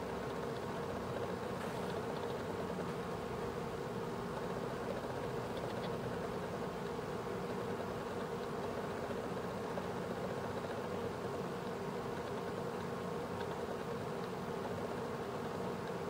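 Five-blade ceiling fan running: a steady hum over an even hiss of moving air.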